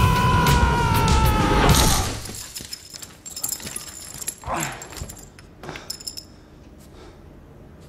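Film fight-scene soundtrack. A held high tone with overtones sinks slightly in pitch over heavy thuds and cuts off about two seconds in. Then come scattered small clicks and rattles of debris, a brief whoosh, and faint metallic jingling.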